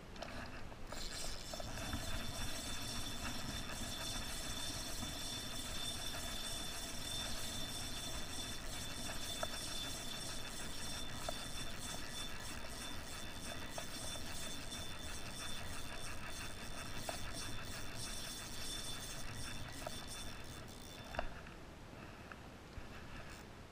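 Spinning reel cranked steadily, its gears whirring with fine rapid ticking, as a hooked fish is reeled in on a bent rod. The cranking stops near the end, followed by a single click.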